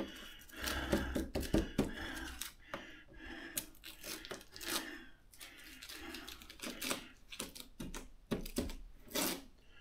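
Hands peeling and lifting small pieces of tape and paper off the plastic lid of a motorcycle top box: irregular light clicks, rustles and short tearing sounds.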